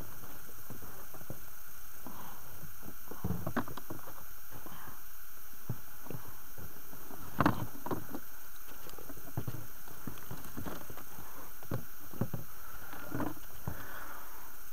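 Water slapping and knocking irregularly against a small boat's side, with one louder knock about halfway through.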